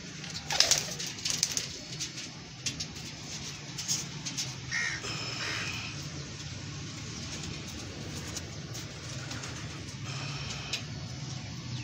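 Domestic pigeons cooing continuously in a loft, a low pulsing murmur of many birds. A few sharp clattering noises come in a cluster about half a second in.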